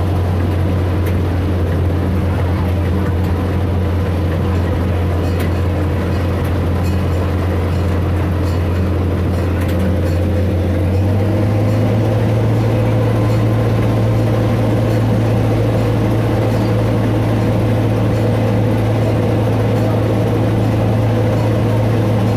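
Miniature train's engine running steadily under way, with a deep hum that steps up a little in pitch about halfway through as it speeds up.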